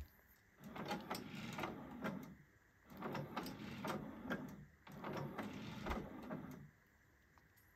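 Sony XB6 hi-fi's CD carousel changer mechanism whirring in three runs of about two seconds each, with short pauses between them, as the disc carousel turns and the changer works.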